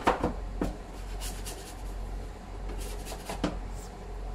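A ball of pizza dough being scooped out of a plastic dough box: a few light knocks of the plastic box in the first second and another a little before the end, with soft rubbing of hands and dough between.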